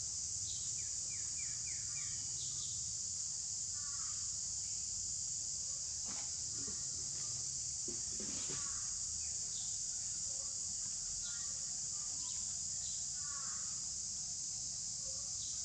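Steady high-pitched drone of an insect chorus, with short bird chirps and little runs of notes repeating every second or two over it.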